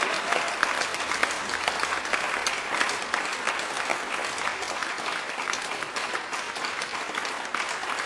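Crowd applause: many hands clapping densely and steadily.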